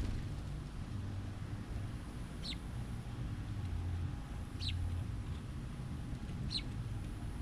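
A bird gives three short, sharp chirps that sweep downward, about two seconds apart, over a steady low rumble.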